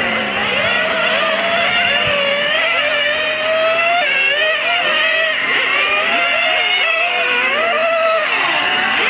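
Several radio-controlled model race cars running on track together: a high whine from their motors, with overlapping pitches rising and falling as they speed up and slow for the corners.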